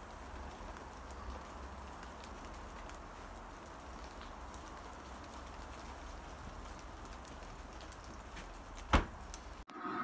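Steady patter of light rain with scattered small ticks, and one sharp knock about nine seconds in.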